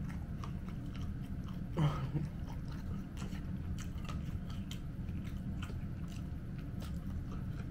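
Close-up chewing and biting of freshly fried chicken, with many small crisp crunches. A short vocal hum from the eater about two seconds in.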